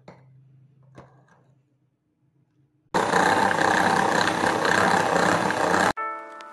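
Electric hand mixer running loudly at speed, beating flour into cake batter; the motor and beaters start suddenly about halfway through and cut off about three seconds later.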